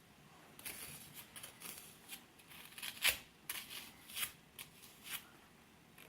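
Digging tool scraping and picking at a water-softened dig-kit block, a run of short irregular scrapes with one sharper knock about three seconds in.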